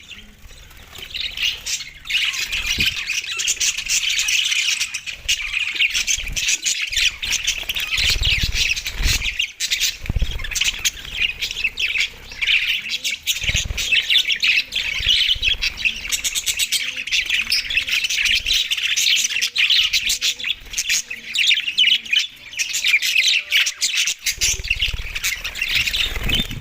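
Budgerigars chattering and chirping continuously, a dense overlapping warble of many quick chirps and squawks.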